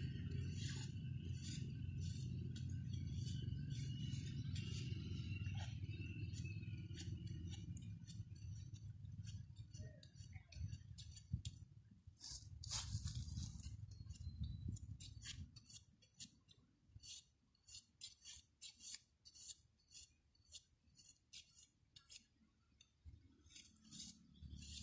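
Bamboo strips being cut and worked by hand: a run of sharp clicks and cracks that comes thicker in the second half, over a low rumble that fades out about two-thirds of the way through.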